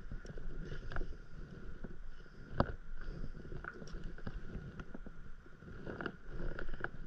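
Small waves lapping against a paddleboard's hull, with scattered light knocks and clicks, the loudest a little over two and a half seconds in.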